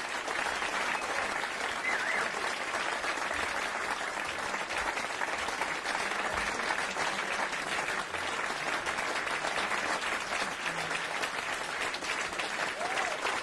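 Audience applauding steadily: dense, continuous clapping from a packed club crowd.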